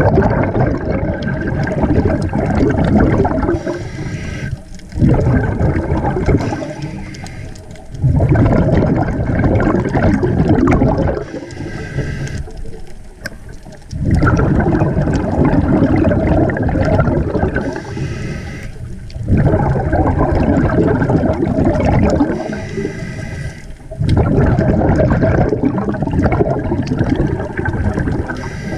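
Scuba diver breathing through a regulator underwater: a loud rush of exhaled bubbles about every five seconds, each starting suddenly and trailing off, with a quieter hiss of inhalation between.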